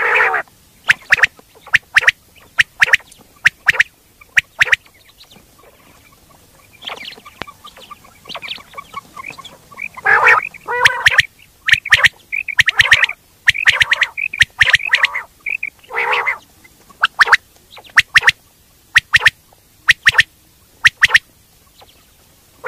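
Common quail calling: a run of short, sharp notes repeated throughout, with fuller, louder calls crowded together in the middle stretch.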